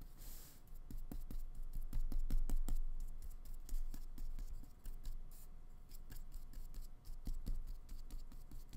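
A flat paintbrush with white acrylic paint dabbing and stroking on paper, making a run of short scratchy taps and brush strokes.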